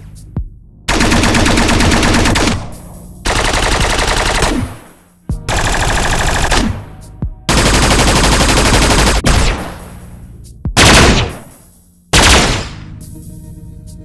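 Sci-fi energy weapon sound effects: a series of separate bursts of rapid automatic fire, each lasting one and a half to two seconds, followed by two short single blasts near the end.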